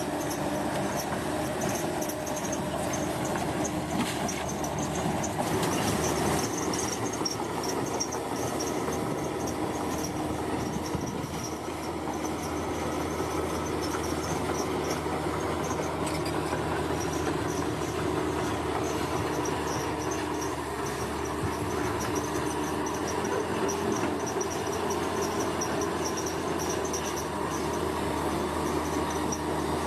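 Bulldozer's diesel engine running steadily under work, with a continuous mechanical drone. A high chirring of insects runs underneath.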